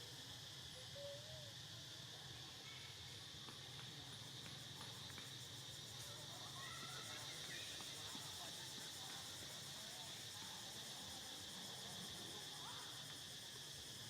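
Faint, steady forest insect chorus, a continuous high buzz, with a few short faint chirps scattered through it, two of them about a second in.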